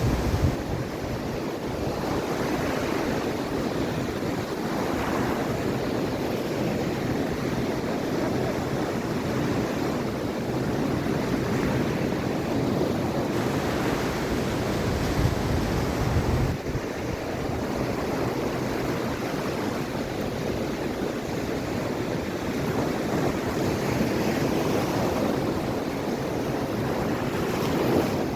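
Mediterranean Sea waves breaking and washing on the shore, a steady surf rush that swells and eases every few seconds. Wind buffets the microphone with a low rumble.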